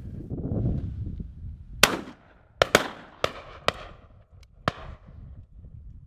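Shotgun shots at driven game birds: six sharp reports, one about two seconds in, a quick double just after, then three more spaced out and fainter. A low wind rumble on the microphone fills the first two seconds.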